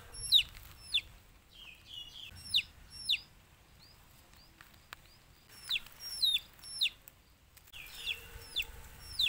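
A bird chirping: short, sharp calls that fall steeply in pitch, coming one or two at a time with pauses between them.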